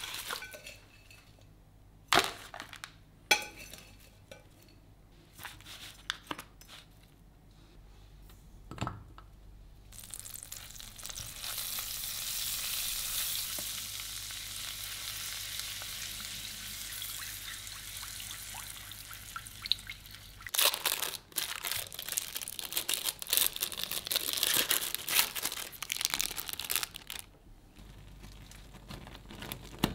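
A few sharp knocks and crinkles, then butter sizzling in a frying pan in a steady hiss as cream is poured in and stirred, slowly easing off. After a sudden cut, a dense crackling.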